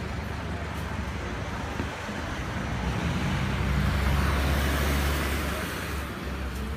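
City street traffic: steady engine rumble and tyre noise, swelling as a vehicle passes close by about three to five seconds in.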